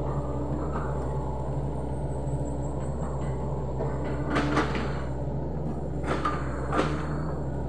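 Sany SY75C excavator's diesel engine running steadily, with a few sharp knocks and creaks about four and a half, six and seven seconds in.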